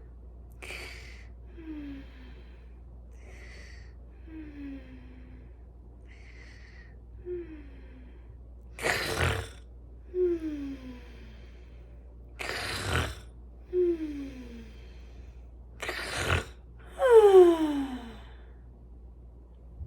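A woman's performed snoring: soft breathy inhales, three loud rasping snores, and after each breath a falling voiced note, the last near the end the loudest.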